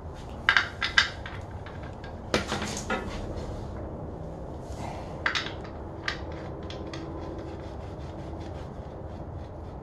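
Hand-work clatter at a truck's rear axle: a few sharp metal clicks and knocks, a scraping rub about two and a half seconds in, then a run of light ticks.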